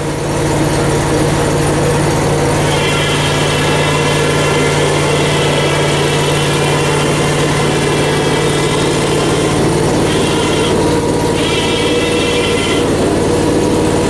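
Gas engine of a Hud-son HFE30 portable bandsaw mill running steadily. A high whine rides over it from about three seconds in, breaks off briefly near ten seconds and stops shortly before the end.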